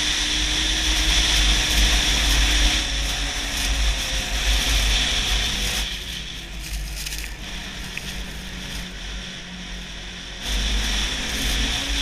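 Snowmobile engine running at speed over a snowy trail, with a heavy low rumble of wind on the microphone. It goes quieter for a few seconds past the middle, then picks up again near the end.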